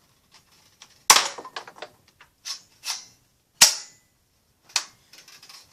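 Plastic snaps and clicks of a knockoff Buzz Bee Tek 4 toy dart blaster's priming mechanism being worked by hand: a loud sharp snap about a second in, another about halfway through and a smaller one near the end, with lighter clicks and rattles between.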